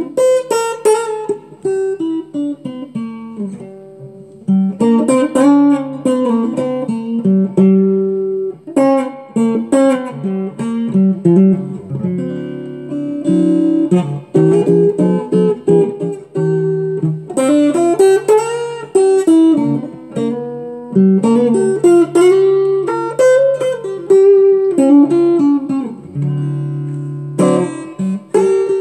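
Taylor T5z guitar improvising blues: plucked single-note phrases with string bends, broken by short pauses between phrases.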